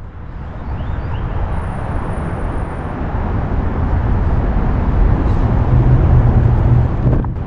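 Steady outdoor urban background noise, a dense low rumble with hiss above it, swelling over the first second; no siren is sounding yet.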